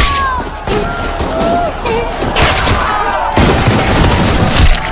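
Rifle volleys from a line of soldiers firing into a crowd: several sharp shots at uneven intervals, the loudest near the start and near the end, over people screaming and wailing.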